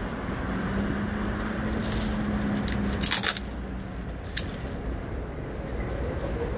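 Packaging being handled and unwrapped, crinkling and scraping, with a short sharp rip about three seconds in and another, briefer one a second and a half later, over a steady low background rumble.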